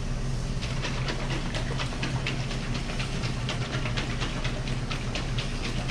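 A steady low hum with quick, irregular ticks or clicks over it, several a second, starting about half a second in.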